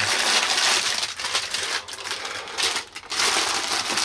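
Loud, continuous crinkling and rustling of food packaging being handled, with short breaks about two and three seconds in.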